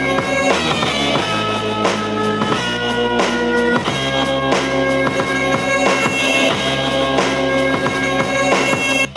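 Music with a drum-kit beat and held melodic notes, played through a Nude Audio Move S wired portable speaker for a sound test; the music breaks off for a moment just before the end.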